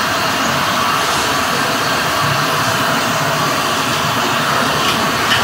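Vegetables stir-frying in a wok over a high gas flame: a steady rushing burner noise with sizzling. A short metal clink of the spatula on the wok comes near the end.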